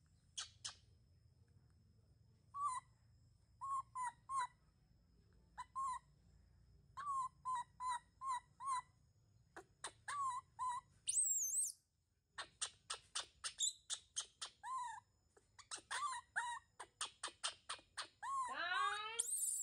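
Baby monkey squeaking: short high calls in small groups, then a fast run of squeaks about four a second from about halfway, ending in a longer rising cry. The calls are those of a young monkey crying for food.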